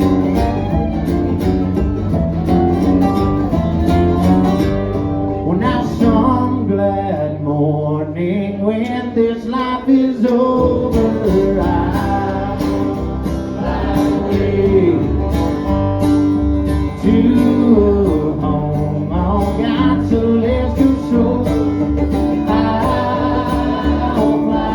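Country gospel band playing an instrumental break: acoustic guitar strumming under a lead line with sliding, bending notes.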